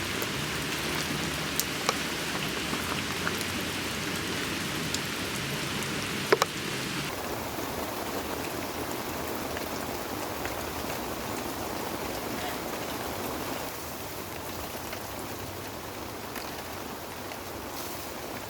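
Heavy rain falling steadily, with a few sharp drip taps in the first few seconds; about seven seconds in the rain becomes duller and a little quieter.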